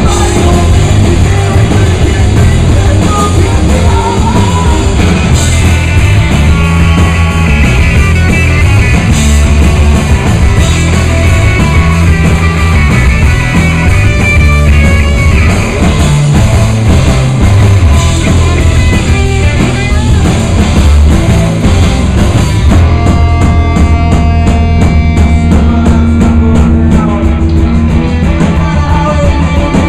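Live rock band playing loud: electric guitar, bass guitar and drum kit together.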